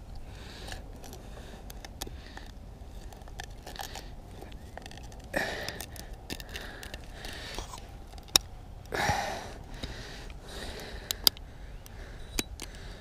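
Long-nosed pliers working a lure's hook out of a northern pike's mouth: a few sharp metal clicks with two short rustling scuffles between them.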